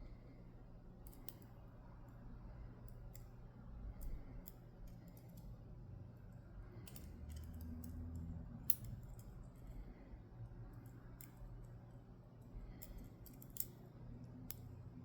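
Faint, irregular small clicks of the discs and spacers of a Dom Diamant disc-detainer lock core being handled and set back in place, with one sharper click a little past the middle.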